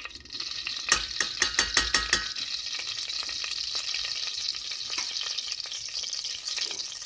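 Ghee sizzling in hot oil in a stainless steel saucepan, a steady frying hiss. About a second in comes a quick run of sharp metallic taps, like a spoon knocking against the pan.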